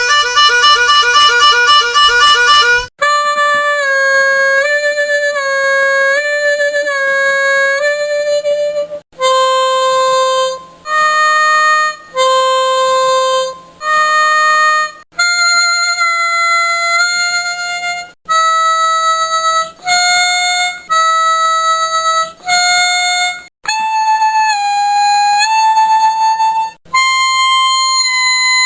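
Harmonica playing: a fast warbling run of notes for the first few seconds, then a series of held notes and short phrases that step up and down in pitch, separated by brief breaks.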